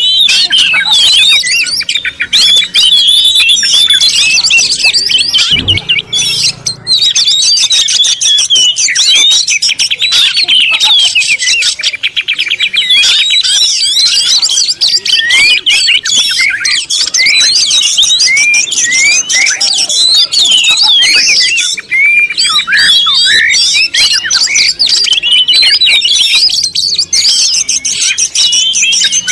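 Many birds chirping at once in a dense, unbroken chorus of overlapping short calls.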